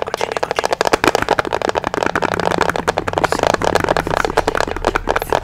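Fast, crisp tapping of fingernails on a stiff handmade cut-out decoration, a dense run of sharp clicks that goes on without a break.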